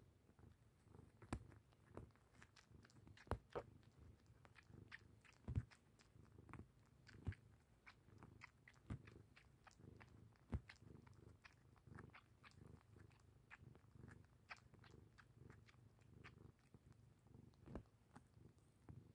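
Cat suckling on a fleece blanket the way a kitten nurses: soft, irregular wet sucking and smacking clicks, a few a second with some louder ones, over a faint low rumble.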